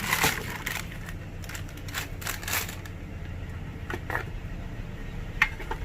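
Crinkling and rustling of packaging as a soldering-iron stand is handled, easing off after a couple of seconds into a few light clicks and knocks.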